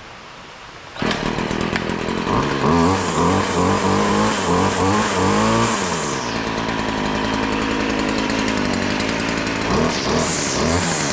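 Stihl FS 50 C string trimmer's small two-stroke engine, freshly fitted with a new carburetor, starts running suddenly about a second in and is revved up and down several times, settles to a steady run, then is blipped again near the end. Before it starts there is only a steady hiss.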